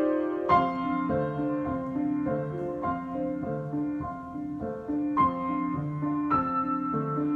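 Solo piano improvisation. A held chord gives way, about half a second in, to a steady repeating broken-chord figure in the lower notes. A few higher melody notes are struck above it.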